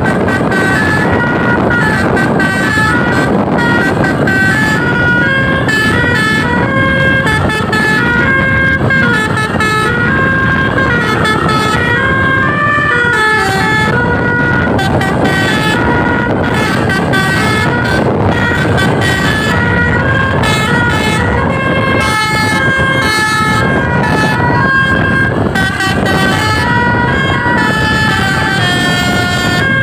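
Basuri telolet bus horn, a set of electrically switched air-horn trumpets run by a DAV module, playing a fast tune of stepped notes that jump up and down without a break, over steady background noise.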